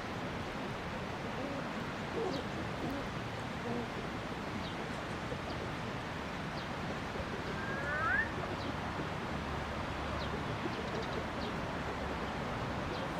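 Steady outdoor background noise with a few short, faint bird calls, the clearest one about eight seconds in.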